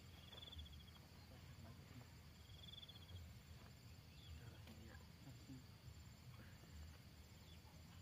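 Crickets chirping faintly: a thin, steady high trill with two short pulsed trills lower in pitch, one at the start and one about two and a half seconds in, over a low rumble.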